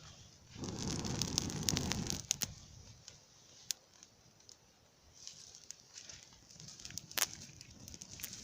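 Grass fire burning over roasting birds, crackling and popping, with a louder, denser stretch of crackle from about half a second to two seconds in and scattered sharp pops after.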